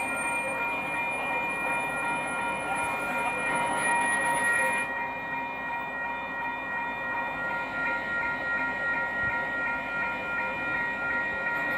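Union Pacific 4014 Big Boy steam locomotive getting under way: a steady high tone is held throughout over the noise of the engine, its pitch balance shifting about halfway through.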